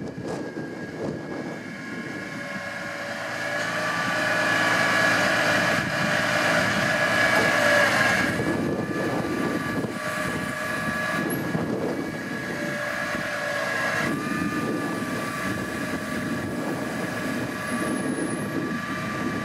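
Altec bucket truck's hydraulics whining steadily over the running truck engine as the boom is lowered and stowed. The whine swells over the first few seconds, eases off about partway through, and shifts pitch again later as the boom movement changes.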